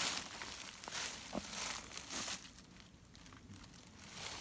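Footsteps crunching through dry leaf litter on a forest floor, a few crunching steps in the first half, then quieter for the last couple of seconds.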